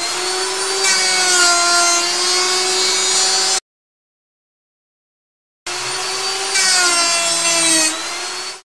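Electric power tool motor whining in two bursts of about three seconds each, its pitch sagging a little as it takes the load and then steadying, cut off sharply between them.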